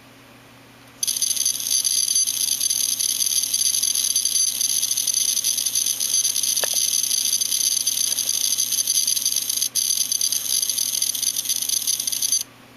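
Defective hard disk drive making a loud, rapid, high-pitched rattling buzz. It starts about a second in, drops out for an instant once, and cuts off suddenly near the end: the strange noise of a broken drive.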